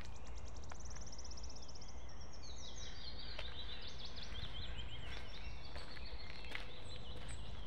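Small songbirds singing in woodland: a fast, high trill in the first second or so, then a longer song of quick, high, varied notes from about two seconds in, over faint footsteps on a dirt path.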